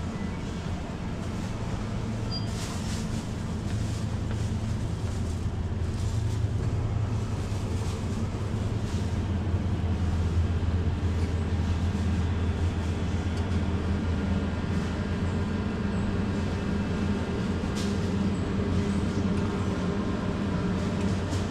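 Steady low hum of supermarket refrigerated display cases, growing a little louder a few seconds in, with a few faint clicks.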